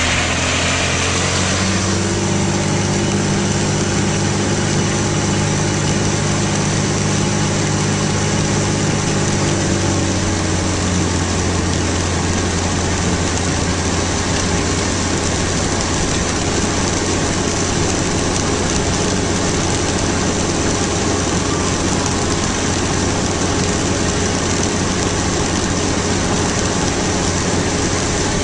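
Car engine and road noise heard from inside the cabin while driving, a steady hum whose engine note shifts about two seconds in and again around ten seconds in.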